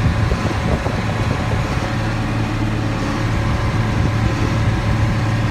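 John Deere 4960 tractor's six-cylinder diesel engine running steadily under load while pulling a New Holland D800 big square baler at a slow working speed.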